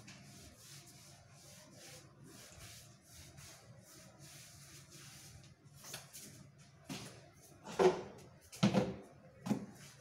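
Window glass and metal grille being wiped by hand with a cloth: soft rubbing strokes over a low steady hum. From about six seconds in come a few loud knocks, the loudest two near the end.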